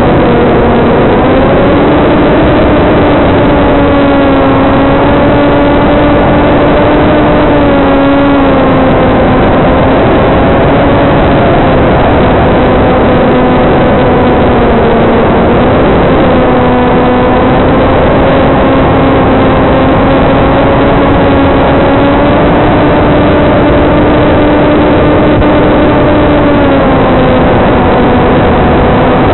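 Single brushless electric motor and propeller of a TBS Caipirinha II flying wing in cruise flight: a steady motor hum that drifts slightly in pitch with the throttle, over a constant hiss.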